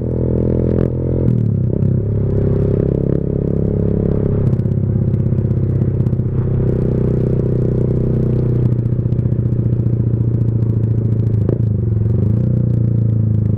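Motorcycle engine running loud through a Leo Vince GP Corsa Shorty carbon-fibre slip-on exhaust with its dB killer taken out, on a stock-bore engine while riding. The engine note steps in pitch a few times as the revs change.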